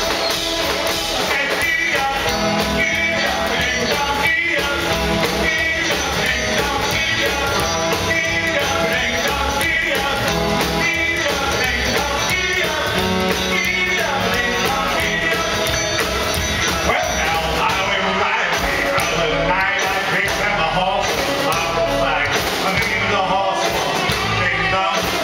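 Live rock and roll band playing: electric guitars and a drum kit driving a steady beat, with a man singing.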